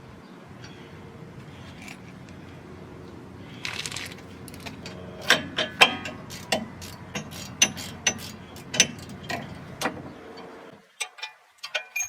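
Sharp metallic clicks and clinks, roughly two a second, from a hand ratchet and socket being worked to tighten brake caliper bolts, after a brief scrape. A steady low rumble sits underneath and cuts off suddenly near the end.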